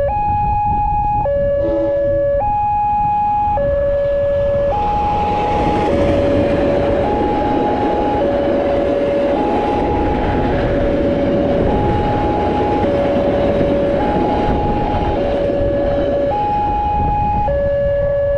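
Railway level-crossing warning alarm sounding a two-tone electronic chime, switching between a high and a low tone each held about a second. From about four seconds in to near the end, a passenger train of the KA Matarmaja service runs past, its carriages adding a rushing rumble under the chime.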